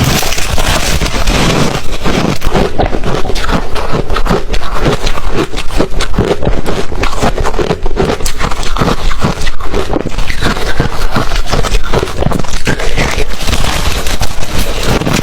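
Ice being chewed close to the microphone: dense, rapid crunching with many sharp cracks a second and no let-up.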